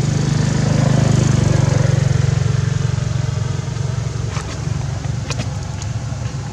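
A motor vehicle's engine running as a steady low hum that swells about a second in and then eases off, with a few short, sharp high sounds near the end.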